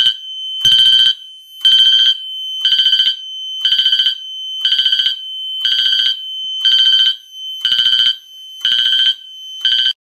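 Wheelock MT-12/24 multitone fire alarm appliance sounding its bell tone in march-time pulses at 60 beats per minute, about one pulse a second, with a fainter steady tone between pulses. It is signalling an alarm from a pulled manual pull station, and it is pretty loud.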